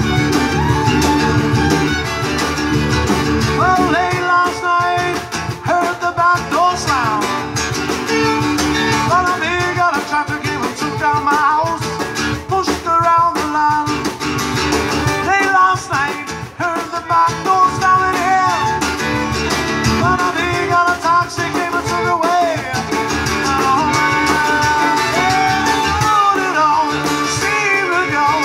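Live acoustic band playing: a fiddle carries a sliding, wavering melody over strummed acoustic guitar and drum and conga percussion.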